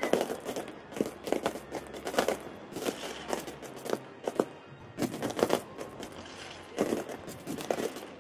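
Aerial firework shells bursting overhead: a run of sharp bangs and crackles coming in clusters about once a second.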